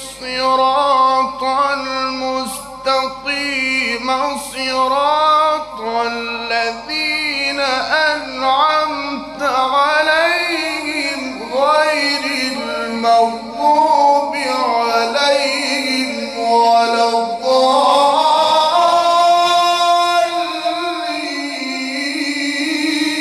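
A male qari reciting the Quran in Arabic in a melodic, ornamented style, one voice gliding through runs of notes and ending on a long held, wavering note.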